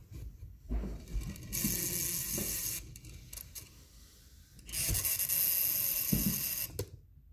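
A mousetrap car's wheel and threaded-rod axle spinning in their bearings, making two spells of whirring rattle with a few knocks in between, the first about a second and a half in and the second, longer, near the middle.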